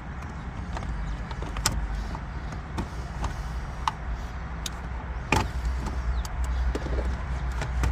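Scattered light clicks and knocks of plastic and wiring as a car stereo head unit is pushed and worked into the dash opening, one sharper knock about five seconds in, over a steady low rumble.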